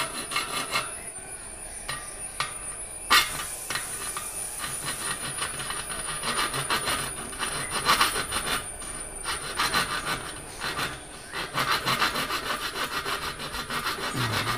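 A hand file rasping back and forth in quick repeated strokes over protruding spoke ends inside a spoked wheel rim, filing them flush so they cannot puncture the inner tube. There is a sharp metallic knock about three seconds in.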